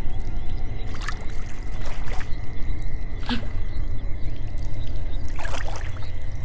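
Water dripping and splashing in a cave pool: four separate drips or small splashes over a deep, steady rumble.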